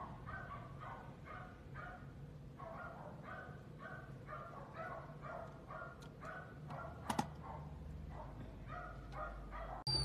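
Short pitched animal calls repeating quickly, about two or three a second, over a low steady hum, with one sharp click about seven seconds in.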